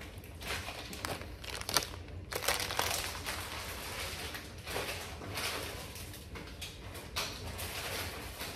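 Plastic packaging and shipping bags rustling and crinkling as someone rummages through them, in uneven swells.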